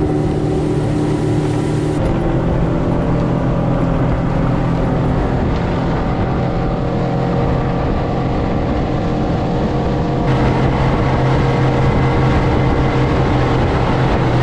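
A motorboat's engine running steadily at speed, a loud even drone, with abrupt changes in tone about two seconds and ten seconds in where shots are cut together.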